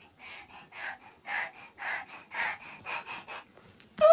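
A person's short breathy puffs of breath, about two a second, as in heavy breathing or stifled laughter. A loud, high-pitched voice cuts in at the very end.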